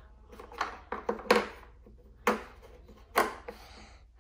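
A series of sharp, irregular clicks and knocks of hard plastic and metal as hands work at a kart's battery compartment, fitting small cylindrical batteries into place.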